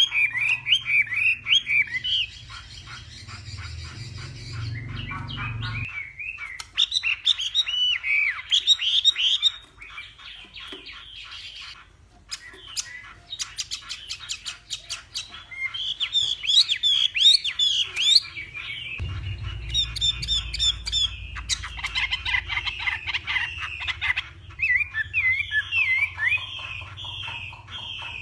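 Chinese hwamei (Garrulax canorus) singing a loud, varied song of rapid slurred whistles and trills, cut between several recordings.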